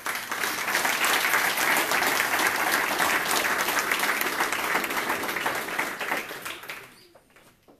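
A roomful of people applauding, a dense patter of many hands clapping that dies away near the end.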